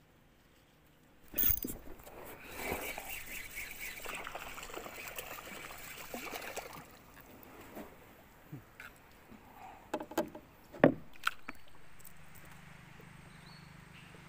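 A hooked small black bass splashing and thrashing at the water's surface as it is reeled in, then a series of knocks and thumps as it is swung aboard and flaps against the boat's hull, the loudest knock about eleven seconds in.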